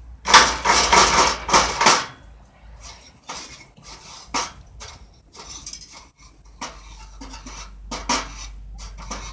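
Metal clattering and scraping: a loud burst of quick scraping strokes lasting over a second, then scattered knocks and clinks of metal on metal.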